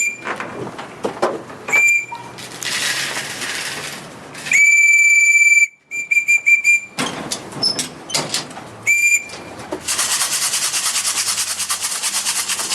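A whistle blown to call a circling racing pigeon down to the loft: several short blasts and one long one of about a second, all at the same steady pitch. Near the end a rhythmic rasping noise takes over.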